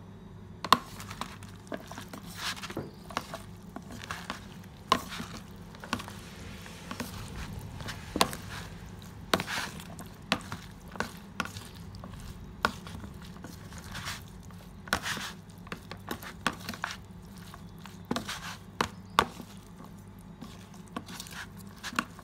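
Salad being tossed with plastic salad servers in a plastic tub: irregular knocks, clicks and scrapes of the servers against the tub and each other as the dressed leaves and vegetables are mixed, over a low steady hum.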